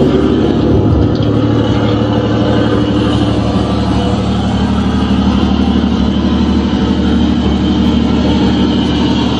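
Recording of an American LaFrance twelve-cylinder fire-engine motor running steadily, played back through the exhibit's speakers in place of the display truck's own drained engine.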